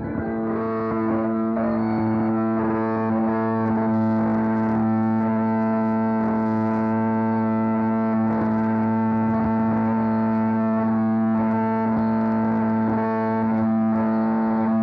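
Bagpipes playing, their drones holding two steady notes an octave apart beneath the chanter's melody, with audio feedback and distortion fighting the piper.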